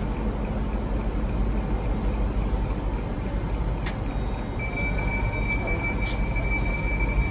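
Steady low rumble of a running vehicle, with a steady high-pitched tone coming in about halfway through.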